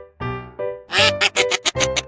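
Background music with evenly pitched keyboard-like notes; about a second in, a quick run of six or seven short, harsh calls, louder than the music.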